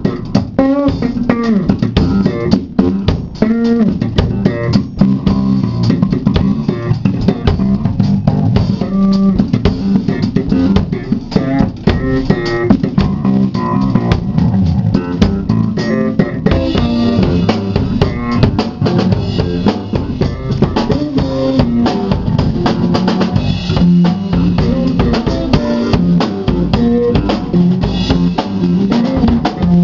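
Electric bass guitar and drum kit playing a funk groove together, the bass line up front over busy drums. The cymbals get stronger from about halfway through.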